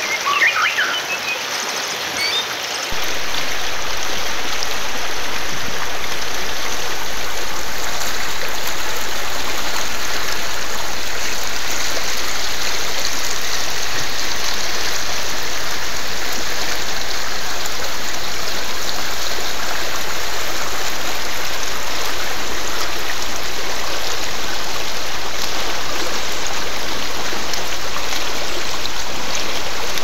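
Shallow stream rushing over rocks, a steady rush of water. A few bird chirps sound right at the start, and about three seconds in the water becomes louder and holds steady.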